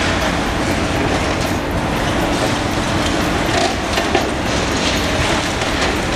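Liebherr demolition excavator at work: its diesel engine and hydraulics run steadily while the jaw attachment crushes and tears reinforced concrete, with a continuous crackle of crumbling and falling rubble.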